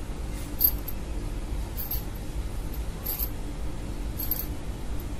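Light, sharp clicks about once every second or so over a steady low hum of room noise.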